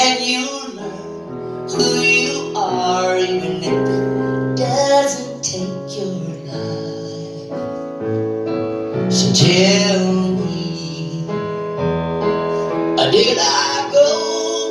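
Woman singing live into a microphone with piano accompaniment from a stage keyboard, her voice holding long notes over sustained chords, heard through a concert hall's PA.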